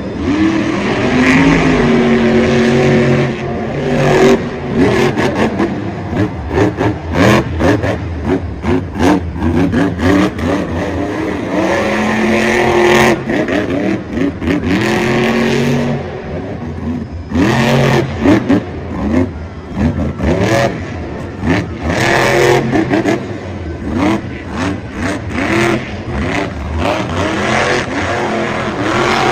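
El Toro Loco monster truck's supercharged engine revving hard and falling back over and over as the truck is driven around the dirt, with many sharp bangs mixed in.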